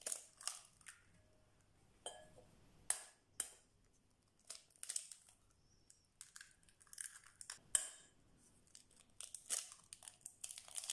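Eggs being cracked one after another into a glass mixing bowl: a scattered string of short, sharp cracks and crackles of eggshell breaking and being pulled apart, faint.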